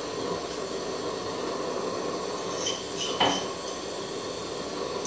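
Steady rumbling hiss of a stove burner heating a pot of soup, with one sharp clink about three seconds in.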